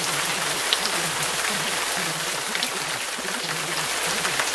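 Steady rain noise with scattered drop ticks. Beneath it a faint, low voice murmurs, masked by the rain, as subliminal affirmations are.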